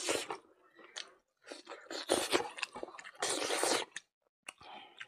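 Close-miked chewing of buffalo innards curry with rice, in irregular wet, crunchy bursts, the loudest in the middle.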